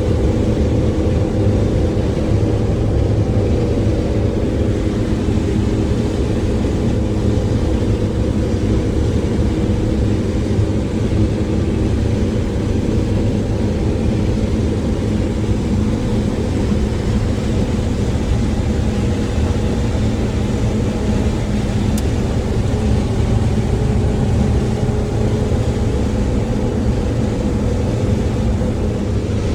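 Farm machinery engine running steadily during corn harvest, a continuous low drone with an even hum over it.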